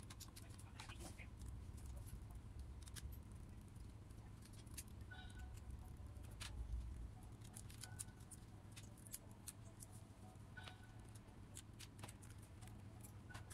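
Faint, scattered clicks and taps of a small screwdriver turning and lifting out the tiny screws inside an opened laptop, over a low steady hum.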